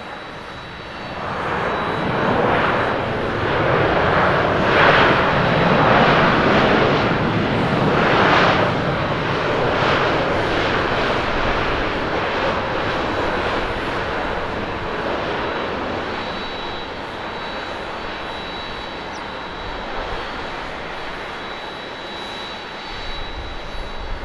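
Boeing 787-8 Dreamliner's GEnx jet engines roaring as the airliner rolls out along the runway just after touchdown. The roar swells about a second in, stays loud and surging for several seconds, then slowly dies down as the jet slows.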